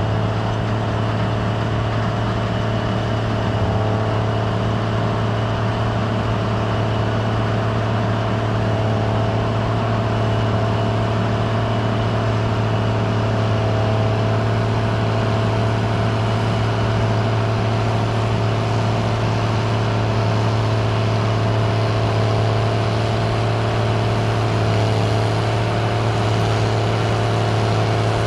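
Gleaner R72 combine running steadily while harvesting rye: an even low drone with a constant whine above it.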